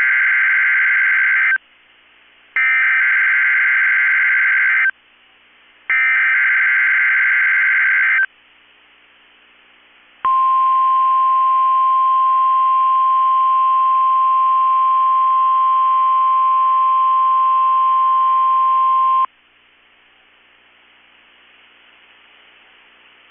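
NOAA Weather Radio SAME (Specific Area Message Encoding) header for a Required Weekly Test, heard through a weather radio receiver. It comes as three bursts of warbling data tones, each about two seconds long with a second's pause between. These are followed by the steady 1050 Hz warning alarm tone, held for about nine seconds, then faint radio hiss.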